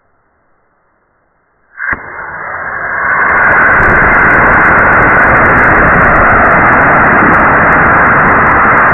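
Model rocket motor igniting about two seconds in with a sharp pop, then a loud steady rushing hiss that builds over a second and a half and keeps going as the motor burns.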